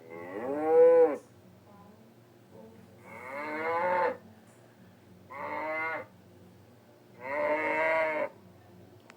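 Four moo-like calls from a cartoon wildebeest, each about a second long with short pauses between them; the first falls in pitch at its end.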